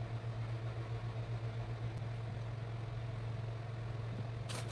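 A steady low hum, with a brief sharp scrape near the end.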